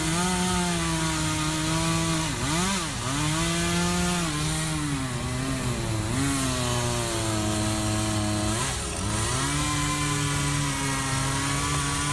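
Chainsaw running at high speed while cutting, its pitch dipping briefly and picking back up several times: around two to three seconds in, again a little later, and near nine seconds, as the chain bogs in the wood.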